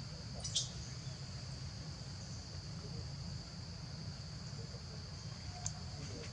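Steady chorus of insects in the forest, a high even drone, over a low rumble, with a couple of short high chirps about half a second in and again near the end.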